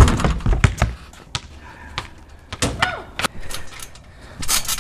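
A basketball bangs against the hoop with a loud thump, then comes a quick run of heavier thuds as it bounces. Scattered light knocks and clicks follow.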